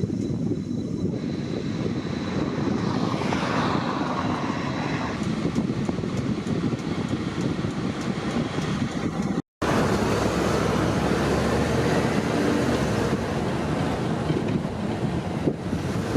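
Steady road traffic noise with wind rumbling on the microphone, cut off abruptly for a moment about halfway through.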